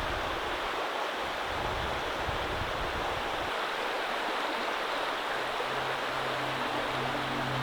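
Steady rushing of flowing water, like a mountain stream. Low steady humming tones come in about five seconds in.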